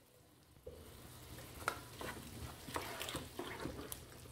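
Wooden spoon stirring tomato pulp, onions and black olives in a frying pan, with soft scrapes and a few light taps on the pan over a faint sizzle. It starts about half a second in.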